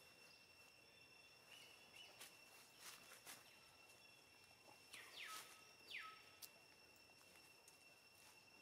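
Faint outdoor ambience: a steady high-pitched insect drone throughout, with a few soft clicks and two short calls sliding sharply downward, about a second apart, in the middle.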